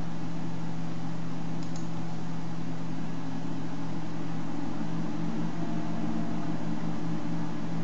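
Steady low hum with an even hiss, unchanging throughout: background room tone with no distinct events.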